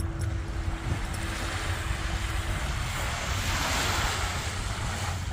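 Ocean surf breaking on a beach, with wind rumbling on the microphone; a wave washes in with a swelling hiss about three seconds in.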